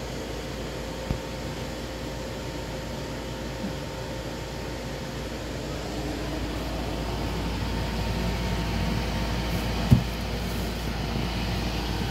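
Steady mechanical hum with a low rumble and faint held whine tones. There is a light knock about a second in and a louder thump near the end.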